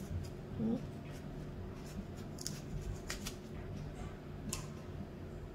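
Kitchen knife cutting the core out of a halved apple, giving a few short, crisp clicks and scrapes as the blade goes through the flesh. A brief wavering tone, the loudest sound, comes under a second in.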